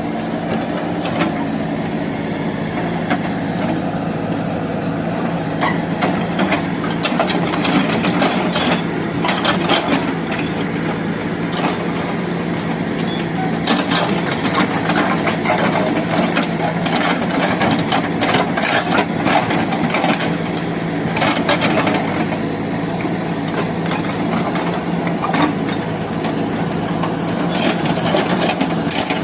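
Backhoe loader engine running steadily, with irregular knocks and clatter throughout.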